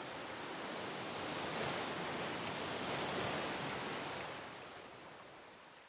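A soft, even rushing noise like surf that swells gently and then fades away near the end.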